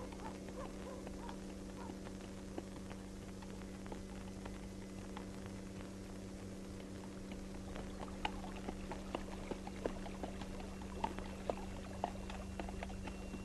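Donkey hooves clopping on a dirt path, faint at first and plainer from about eight seconds in, about two steps a second, over the steady low hum and hiss of an old film soundtrack.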